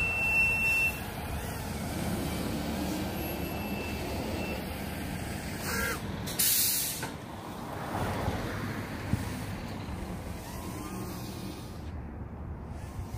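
Outdoor traffic rumble, steady and low, with a brief loud hiss about six and a half seconds in.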